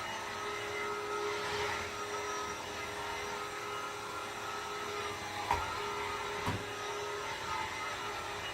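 Vacuum cleaner running steadily with a constant whine. Two short knocks a second apart come past the middle, as the nozzle bumps or is moved.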